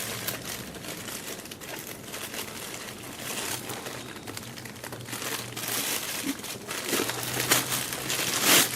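Packaging crinkling and rustling as a boxed chandelier is unwrapped and handled, in a run of irregular crackles that is loudest near the end.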